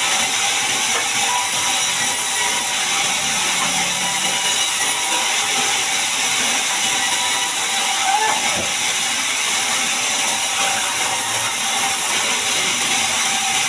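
Band sawmill running, its blade cutting through a large mahogany log: a steady, dense hissing noise, with a brief faint squeak about eight seconds in.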